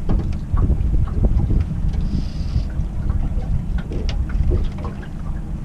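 Steady low rumble of wind buffeting the microphone and the fishing boat's motor running at slow trolling speed, with scattered small clicks and knocks and a brief faint high tone about two seconds in.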